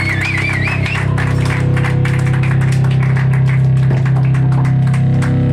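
Loud live hardcore band holding a sustained low distorted guitar chord, with rapid drum and cymbal hits over it and a wavering high tone in the first second.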